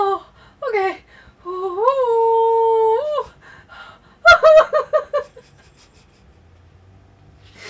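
A woman's voice, hurting from recent surgery: a short falling whimper, a long held moan, then a quick burst of laughter, after which it goes quiet for the last couple of seconds.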